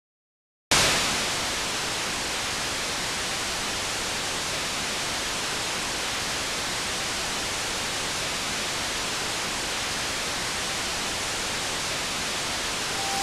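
A moment of dead silence, then static noise cuts in abruptly less than a second in. It holds as a steady, even hiss and grows slightly louder near the end.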